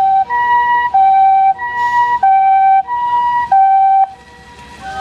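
Japanese ambulance's two-tone siren, alternating between a lower and a higher note about every two-thirds of a second, loud, cutting off about four seconds in.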